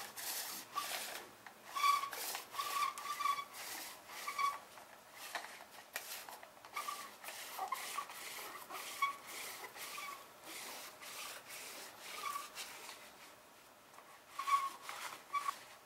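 Adhesive lint roller rolled in quick strokes over a sleeve and trouser leg, a sticky rubbing rasp with faint squeaks on each stroke. The strokes come thick and fast at first, thin out in the middle, and bunch up again near the end.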